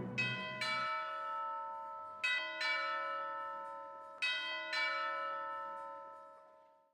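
A bell struck three times, about two seconds apart, each time as a quick double stroke, its tones ringing on and dying away. At the start, the last low orchestral chord is still fading out.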